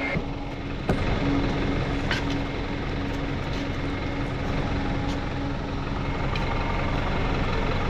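A vehicle engine idling steadily while a shovel digs in sand, with a sharp knock about a second in and a few fainter clicks after it.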